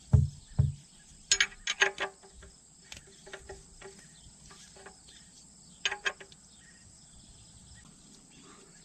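Two dull thumps, then scattered light metallic clicks and clinks of a combination wrench and tools being handled at the oil drain bolt, with a faint steady cricket chirr underneath.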